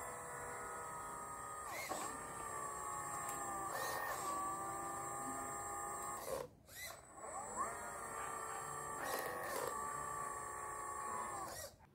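Homemade RC excavator's electric motors whining under load as the arm digs and lifts sand. The whine rises as it starts, shifts pitch several times as the movements change, stops briefly about halfway, then starts again and cuts off near the end.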